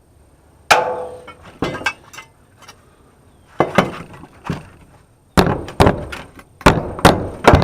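Metal faucet parts knocking and clinking as the faucet is worked apart: a run of sharp, irregular knocks with short ringing, coming thickest in the second half.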